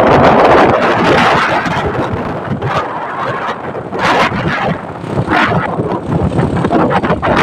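Wind rushing over the microphone of a phone carried on a moving motor scooter, swelling in gusts, with the ride's traffic noise underneath.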